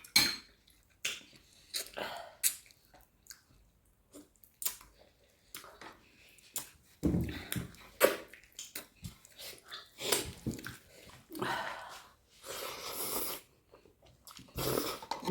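Close-up chewing and biting of a mouthful of food, with irregular wet smacks and short clicks.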